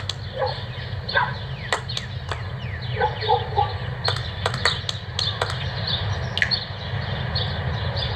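Birds chirping over and over in short, falling calls, with a steady low rumble underneath and scattered faint clicks.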